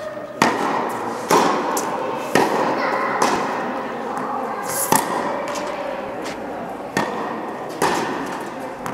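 A tennis rally on an indoor court: a series of about six sharp racket hits and ball bounces a second or two apart, each followed by an echo in the hall.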